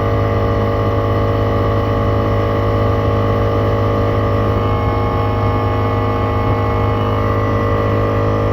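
Reed-valve air compressor running steadily, a constant motor-and-pump hum with no rattle. Its reed valves have been replaced with flat reeds cut from a feeler gauge, and it is drawing well.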